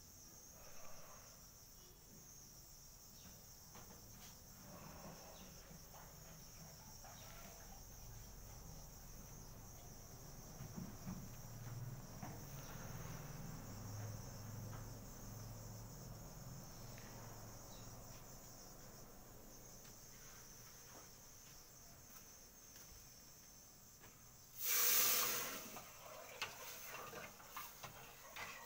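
Faint, steady high-pitched trill of crickets. About three quarters of the way through, a loud burst of noise lasting about a second. A few light clicks near the end as the beads are handled.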